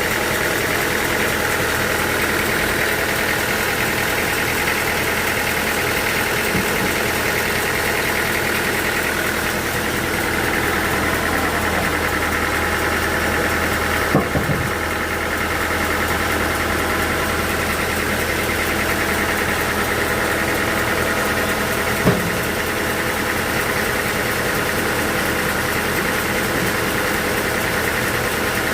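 Heavy machinery running steadily, with a few sharp knocks about halfway through and another near the three-quarter mark.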